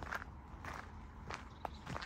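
Footsteps on a gravel towpath at a steady walking pace, each step a short crunch about every half second.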